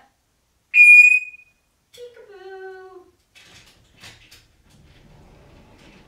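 African grey parrot imitating a security-system beep: one loud, high, electronic-sounding beep about a second in, lasting under a second. About a second later it gives a lower, shorter call that falls in pitch, followed by a few faint clicks.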